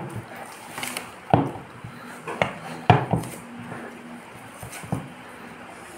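Kitchen utensils and a bowl knocking and clinking as food is prepared, about six light knocks scattered irregularly over a few seconds.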